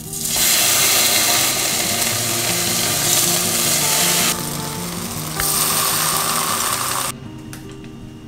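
Slices of ham sizzling loudly as they are laid into a hot frying pan. The sizzle eases for about a second midway and cuts off abruptly about seven seconds in.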